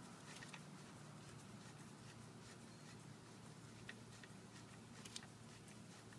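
Near silence: faint room tone with a few scattered light clicks.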